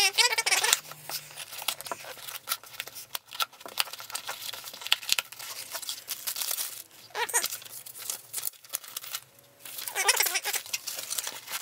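Coin packaging being torn open and crinkled by hand: a run of irregular sharp crackles and clicks.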